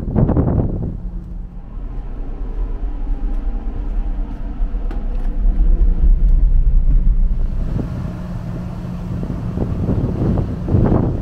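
Steady low hum of a large ferry's engines, with a few faint clicks, then wind rushing over the microphone from about seven seconds in, in gusts near the end.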